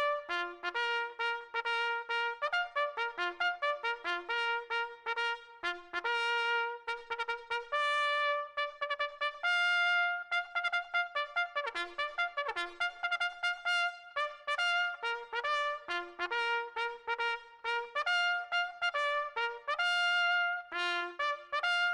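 Solo trumpet playing a melody, one note at a time, mixing quick short notes with longer held ones in phrases separated by brief pauses.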